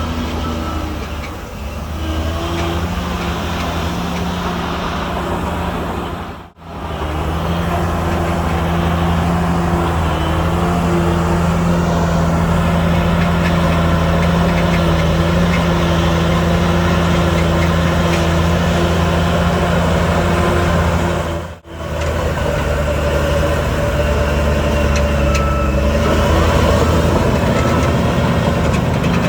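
Heavy diesel earthmoving machinery running steadily at a constant engine speed, with two brief gaps in the sound, about six seconds in and about twenty-one seconds in.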